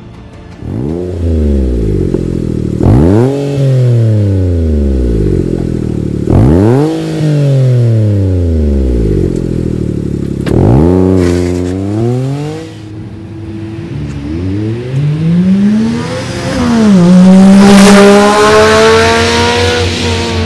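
Exhaust of a Suzuki HA36V Alto Van's small three-cylinder engine through an aftermarket muffler: revved sharply four times, each rev falling slowly back, then accelerating hard with a gear change about three quarters of the way through and passing loudly before easing off.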